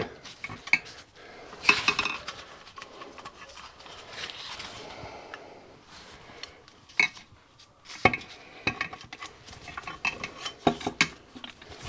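Metal clinking, knocking and scraping as the cylinder block of a Stuart P10 engine is worked down over the piston and crankcase studs. The block is catching on something, which the owner thinks is a stud hitting its hole. There is a rubbing stretch early on and several sharp knocks in the second half.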